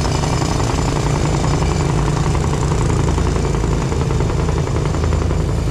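Small 125cc motorbike engine running steadily at low speed under load, carrying two riders up a steep loose-gravel climb, with a fast, even firing pulse.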